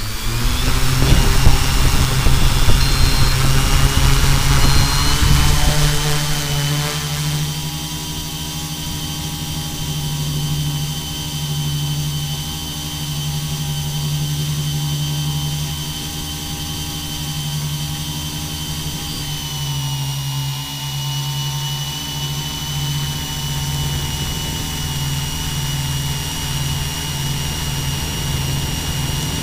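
Multirotor drone's electric motors and propellers spinning up for takeoff and climbing, heard from its onboard camera. A loud rush for the first six seconds or so, then a steady propeller hum with a wavering beat and a high motor whine above it.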